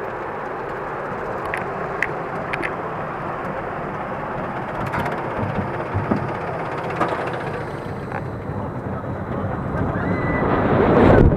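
Roller coaster train running on its track with a steady rumble and a few sharp clicks. Near the end it tips over the crest into the drop and the rumble and wind noise build quickly.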